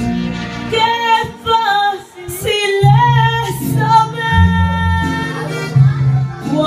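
A woman singing through an amplified handheld microphone over a recorded backing track with a steady bass line, holding long notes that bend in pitch.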